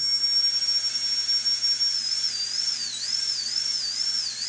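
TurboCarver air-turbine carving handpiece running with a high, steady whine over a faint low hum. From about two seconds in, its pitch dips and recovers again and again as the burr bites into the wood.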